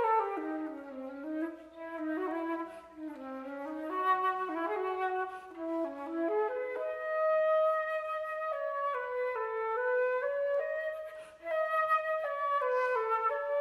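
Unaccompanied concert flute playing a single melodic line. It starts low in the flute's bottom register, then climbs and moves about in the middle register, with a short break for breath about eleven seconds in.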